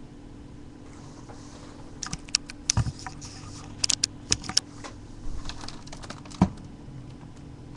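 Irregular clicks of a computer keyboard, about a dozen keystrokes in short clusters, the last and loudest with a dull thud. A low steady electrical hum runs underneath.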